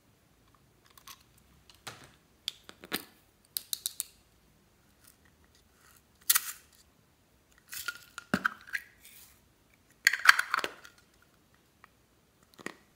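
Small plastic items handled close to the microphone: scattered clicks, taps and short rustles, with a louder cluster about ten seconds in.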